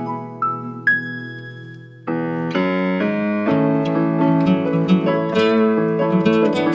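Instrumental break on an electronic keyboard with a piano sound and an acoustic guitar. A few single held keyboard notes ring and die away. About two seconds in, the playing picks up again with chords and plucked guitar notes.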